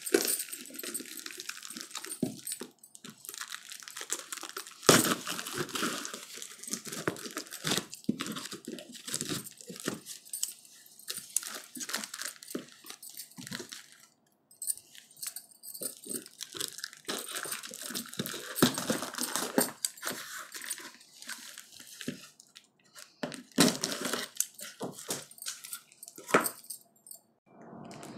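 Black plastic mailer wrapping and a cardboard box being torn and pulled open by hand: irregular ripping and crinkling with short pauses, the loudest rips about five seconds in and near the end.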